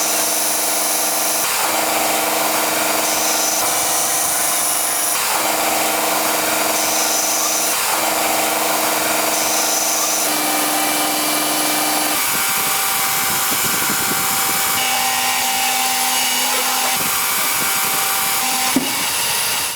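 Electric power tool working steel, running steadily with its hum stepping to a different pitch every few seconds.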